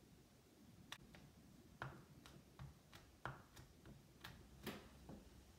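About a dozen faint, irregular clicks and taps as fingers press and rub a microfiber cloth over a calculator's plastic screen protector, starting about a second in.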